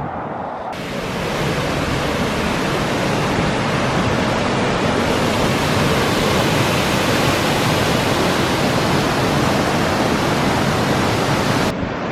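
Waterfall rushing close by: a loud, even roar of falling water that comes in suddenly about a second in.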